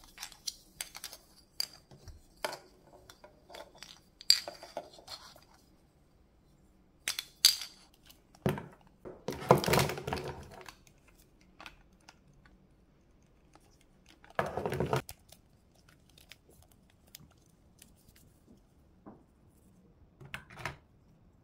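Hard plastic toys being handled and set down on a table: scattered clicks and knocks of plastic parts, with two longer noisy stretches about ten and fifteen seconds in.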